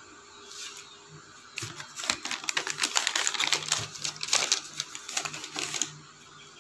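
Close-up eating sounds: a rapid, dense run of wet clicks and smacks from chewing a mouthful of burger, starting about a second and a half in and stopping near the end.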